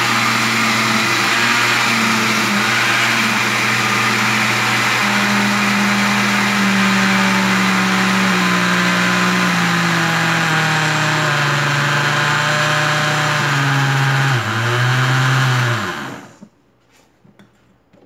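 Arno Power Max 1000 blender motor running steadily while blending carrots, eggs and oil into carrot cake batter; its tone slowly sinks, dips briefly near the end, then winds down and stops about two seconds before the end, the batter blended smooth.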